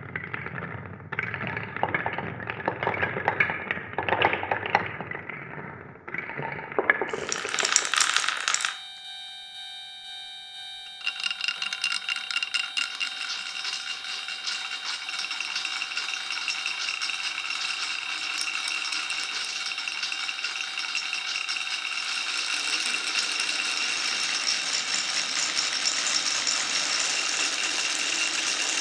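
Glass marbles clicking and clattering as they roll along a wooden marble run. About nine seconds in the clatter stops and a steady tone is left; from about eleven seconds a continuous dense rattle with steady tones runs on, slowly growing louder.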